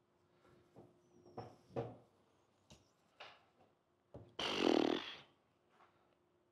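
Plush microfiber drying towel dragged across a wet truck windshield: a few short soft swishes, then one longer, louder rub lasting about a second, past the middle.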